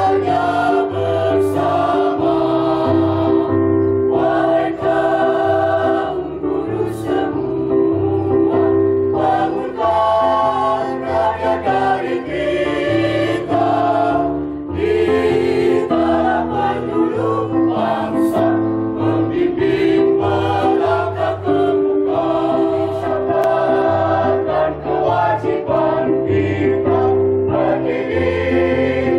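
A mixed choir of men and women singing together in long, held phrases, with short breaks between them.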